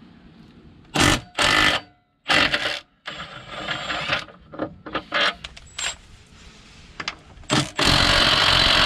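Small cordless impact wrench hammering on a stubborn underbody bolt in repeated bursts, about six, the last and longest lasting about a second near the end; the little wrench is struggling to break the bolt loose.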